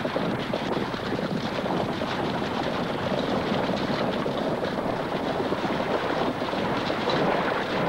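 A herd of wildebeest running through shallow muddy water: a continuous, dense churn of splashing.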